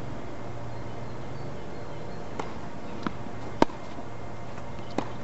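Tennis rally on a hard court: a few sharp pops of racket strikes and ball bounces, about four in all. The loudest is a forehand hit close by, about three and a half seconds in. A steady low hum sits underneath.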